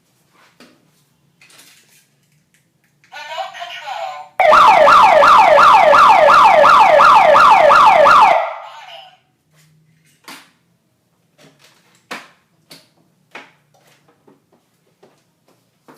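Electronic security-alarm siren sounding a loud, rapidly repeating falling sweep, about three sweeps a second, for about four seconds before cutting off suddenly. A fainter wavering tone comes just before it, and scattered light clicks follow.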